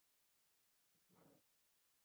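Near silence, broken by one faint, brief sound about a second in.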